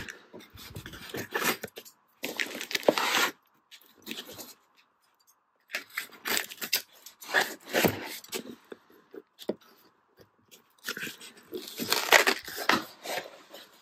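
Scissors cutting through the packing tape on a cardboard shipping carton, with the cardboard scraping and crunching as the box is handled. It comes in several bursts with short pauses between them.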